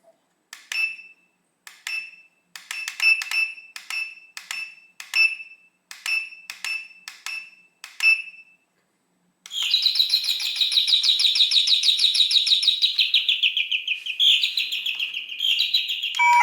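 Wireless doorbell chime unit playing its built-in ringtones through its small speaker. First comes a string of short, ringing pings at one pitch in an uneven rhythm. About nine seconds in, a fast-warbling electronic bird-chirp tune starts.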